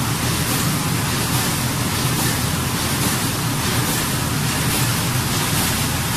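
An automatic carton film window patching machine running: a steady mechanical whir and hum with faint, regular clicking as it feeds carton blanks.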